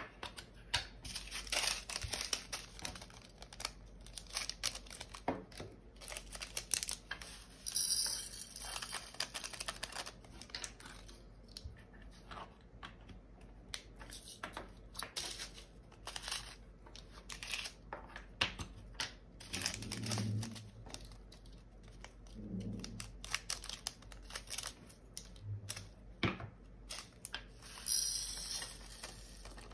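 Small plastic bags of diamond-painting drills crinkling and being handled, with irregular small clicks and crackles. Two short, louder rustling hisses come about eight seconds in and near the end.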